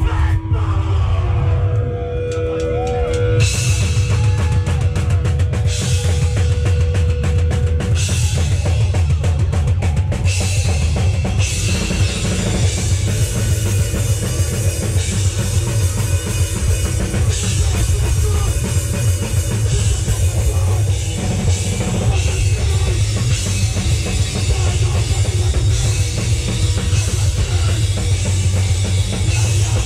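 Rock band playing live and loud: drum kit with bass drum and crashing cymbals, electric guitar and bass. A single note is held at the start, and the full band comes in about three seconds in.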